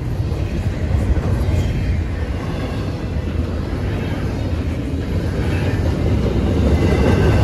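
Double-stack intermodal freight train passing, its container-laden well cars rolling on steel wheels over the rails with a steady rumble that grows a little louder toward the end.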